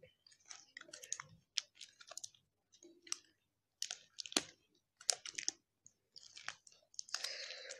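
Handling noise: scattered light clicks and soft rustles as small objects are handled, with a slightly longer rustle near the end.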